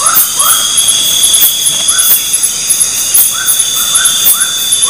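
Night chorus of crickets and other insects: steady high-pitched trilling with a fast, even chirping over it. Short rising calls from another animal come in runs of two or three.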